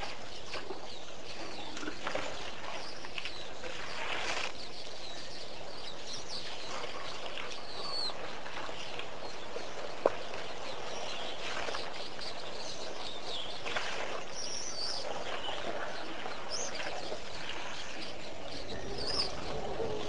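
Wild birds chirping and calling on and off over a steady outdoor hiss, with one sharp click about halfway through.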